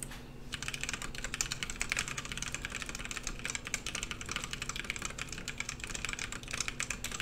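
Rapid typing on a mechanical keyboard: a dense stream of key clicks starting about half a second in. It is picked up through a HyperX Cloud II headset's boom microphone.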